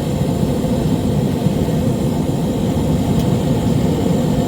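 Handheld torch flame blowing steadily into a tube of wood pellets to light them, an even rushing roar with no change in level.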